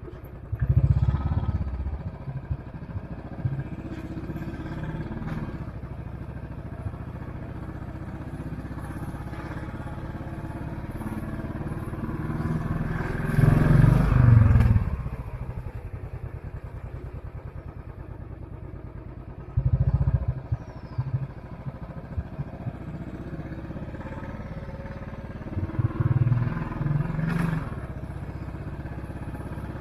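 Royal Enfield Classic 500 single-cylinder engine running on the move, heard close up. It swells louder as the throttle is opened about a second in, again in the middle with the pitch rising then falling, and twice more in the last third.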